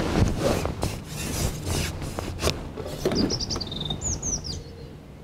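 Irregular rubbing and knocking from handling the fishing pole while a hooked fish is brought in. About three seconds in, a small bird chirps a quick run of high notes, then a few short whistled calls.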